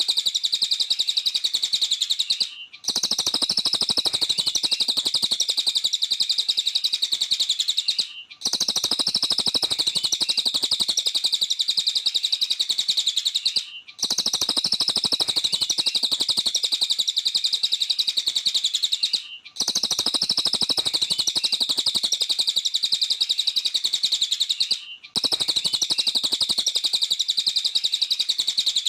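Velvet-fronted nuthatch (cililin) calling in a rapid, high-pitched chattering trill. It runs in stretches of about five and a half seconds broken by brief pauses, repeating like a loop.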